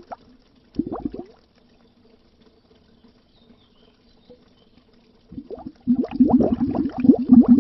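Bubbles gurgling under water: a short burst about a second in, a pause of about four seconds, then a steady stream of bubbling resumes and runs on.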